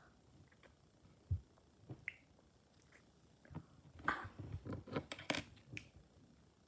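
Quiet clicks and taps of a small scoop in a mini tahini jar, and mouth sounds of tasting the tahini: a soft thump about a second in, then a run of short clicks and smacks in the second half.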